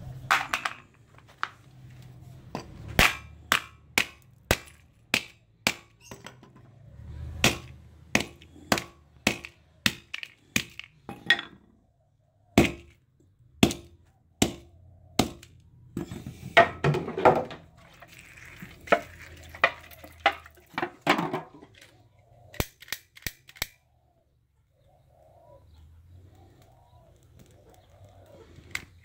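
Sledgehammer repeatedly smashing an iPhone on a concrete floor: a long series of sharp cracks and crunches of breaking glass and metal, roughly one or two blows a second, with a longer grinding crunch about two thirds of the way through. The blows stop a few seconds before the end.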